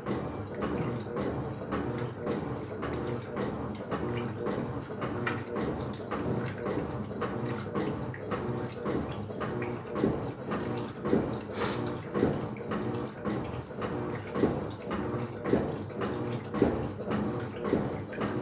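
Electrolux LF75 top-loading washing machine agitating a load: water churning and splashing in the tub over the machine's running drive.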